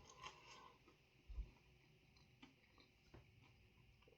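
Near silence: room tone with a few faint clicks and a soft low thump about a second in.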